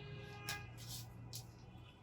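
Faint background music with held notes over a low steady hum, with two short clicks, the louder one about half a second in and another near the middle.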